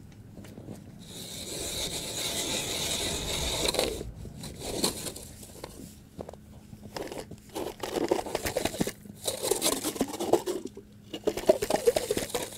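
Hand ice auger's spiral blades cutting into thin river ice, with a rasping crunch that swells for a few seconds and cuts off. It is followed in the second half by rougher, choppy scraping as the blades bite through.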